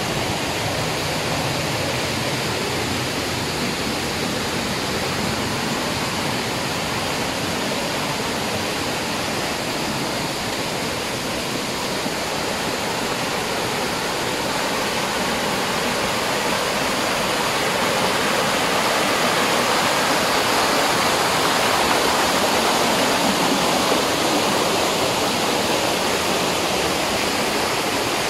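Waterfall: a steady rush of falling, splashing water, growing a little louder past the halfway point.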